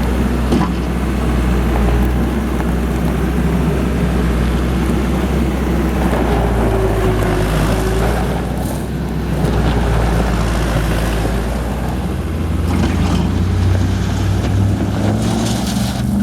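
New Holland L180 skid steer's diesel engine running steadily. A whine dips and recovers in pitch around the middle and rises near the end.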